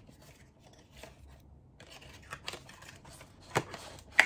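Packaging being handled and opened by hand: scattered rustles and small clicks, with a sharp knock just before the end.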